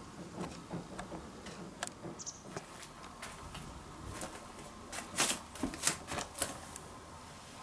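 Irregular light clicks and taps, with a quick run of louder, sharper clicks about five to six and a half seconds in.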